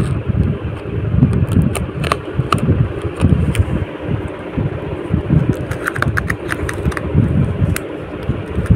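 Uneven low rumble of handling noise on the microphone, with scattered clicks and crackles as a blade cuts through the plastic wrap and tape on a cardboard box.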